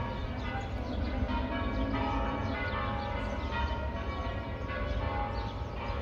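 Church bells ringing the evening bells: several bells struck over and over, their tones overlapping and ringing on between strikes.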